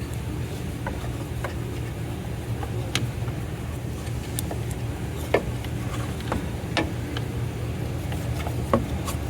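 Electrical tape being wrapped around crimped butt connectors on truck headlight wiring: a handful of light clicks and crackles from the tape and wires being handled, over a steady low hum.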